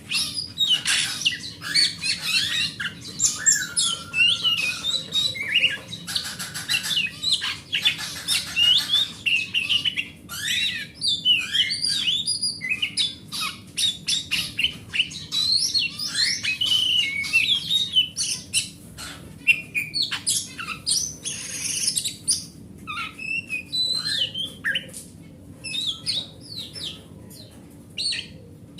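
Oriental magpie-robin (kacer) singing a long, rapid, varied song of clear whistles, pitch glides and harsh scratchy notes with few pauses.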